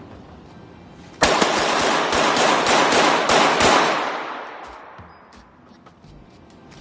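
Rapid string of gunshots, about three a second, starting suddenly about a second in and lasting nearly three seconds, then its echo fading away.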